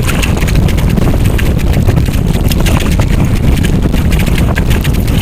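Wind buffeting the microphone: a loud, steady rumble, with scattered small ticks over it.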